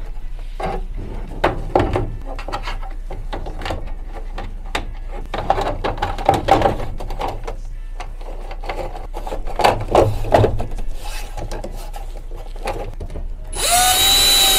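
Clicks and knocks of screws and the frame being handled, then near the end a power drill-driver whirs up, driving stainless self-tapping screws into the MaxxFan roof vent's interior frame.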